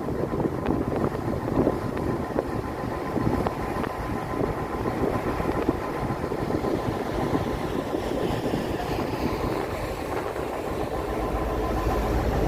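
Steady rumbling noise of a moving vehicle, with a faint steady whine held throughout.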